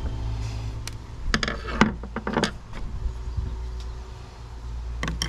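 Clicks and rattles of hard plastic parts being handled as a brake cable junction box is pried open and its insert lifted out: a cluster of sharp clicks about a second and a half in, and a couple more near the end, over a steady low hum.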